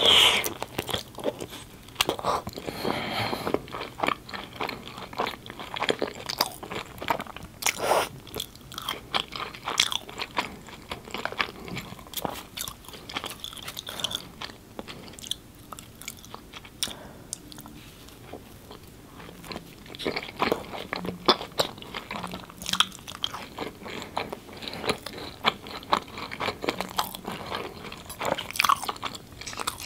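Close-miked eating sounds: a person biting and chewing naan dipped in curry, with crunchy bites and irregular chewing throughout. A loud bite comes right at the start, and the chewing eases off for a few seconds in the middle before picking up again.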